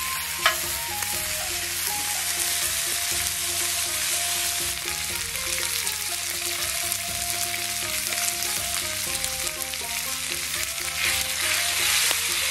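Squid skewers sizzling and frying steadily on a hot iron griddle, coated in barbecue sauce. A single sharp click comes about half a second in.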